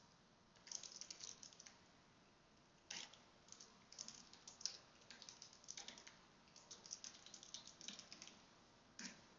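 Quiet typing on a computer keyboard: quick runs of key clicks in bursts with short pauses, then a single click near the end.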